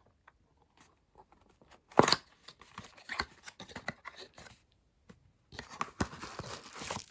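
Packaging being handled while items are worked out of a boxed fan kit: a sharp rustle about two seconds in, scattered taps and crinkles, then a longer rustle near the end.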